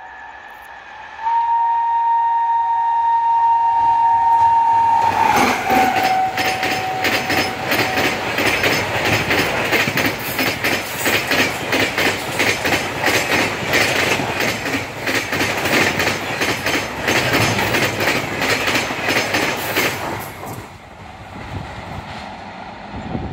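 WAP7 electric locomotive hauling a Rajdhani Express at about 130 km/h, sounding a long two-tone horn as it approaches. The horn's pitch drops as the locomotive passes. The coaches then rush by with a rapid clickety-clack of wheels over the rail joints for about fifteen seconds, fading as the train recedes.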